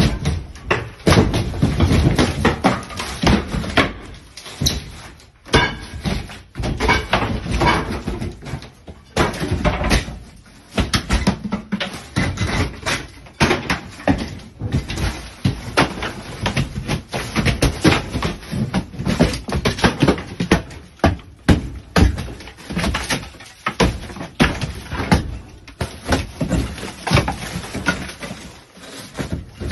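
Sheetrock ceiling being torn down with a Hartford plaster hook: a long run of irregular cracks, thuds and crashes as gypsum board breaks and pieces come down.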